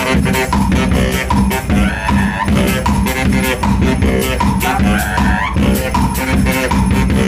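Saxophone and drum busking duo: the saxophone plays buzzy, robot-like sounds over a steady drum beat.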